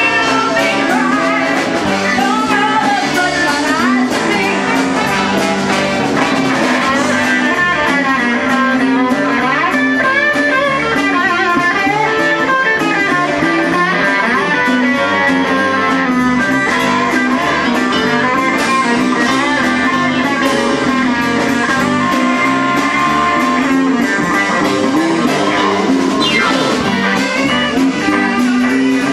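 Live band music: a swing-era blues number with horns and guitar over a steady rhythm, played continuously at full volume.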